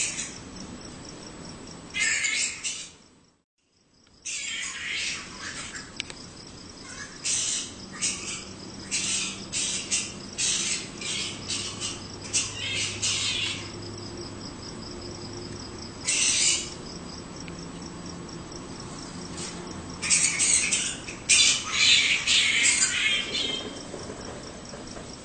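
Harsh animal squawks in about a dozen short bursts, some in quick runs, over a thin steady high insect drone. The sound drops out for about a second near three seconds in.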